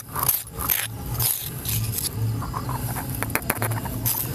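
Metal spoon scraping ground green masala paste out of a stone mortar: irregular rough scrapes of metal on stone, with a few sharp clicks a little past the middle.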